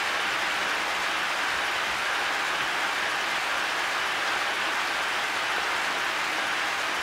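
Heavy rain pouring steadily, an even hiss of falling water.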